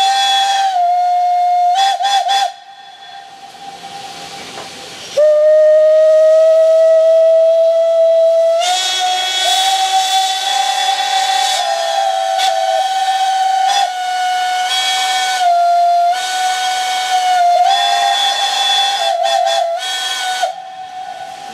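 Steam whistles of Furka HG 3/4 rack steam locomotives. One whistle sounds and ends in a short double toot. Steam hisses for a few seconds, then a lower whistle is held. From about nine seconds in, several whistles blow together at slightly different pitches, broken by short toots, until they stop near the end.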